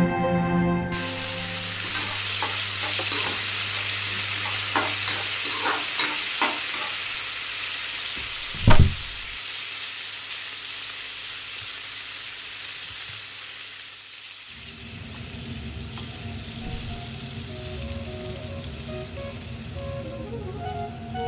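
A steady hiss with scattered light clicks and knocks, and one heavy thump about nine seconds in; soft music comes back in after about fourteen seconds with the hiss still under it.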